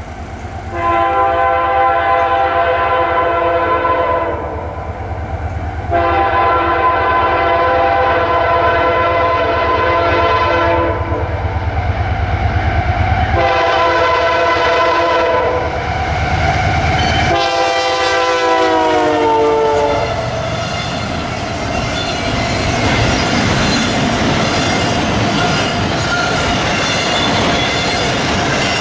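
Nathan K3L air horn on the lead Canadian Pacific AC44CWM diesel locomotive sounds the grade-crossing signal: long, long, short, long. The last blast drops in pitch as the locomotive passes. A freight train with double-stacked container well cars then rolls by, its wheels clacking over the rail joints.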